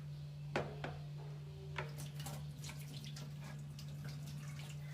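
Water running into a kitchen sink, with a few sharp clinks and knocks of utensils or dishes, over a steady low hum.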